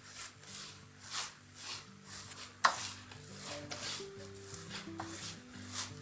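Soft background music with repeated rubbing or swishing strokes, about two a second, and one sharp knock a little before halfway.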